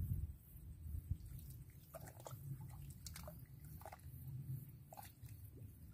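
Low wind rumble on the microphone over open water, with a scattered run of faint short sounds starting about two seconds in.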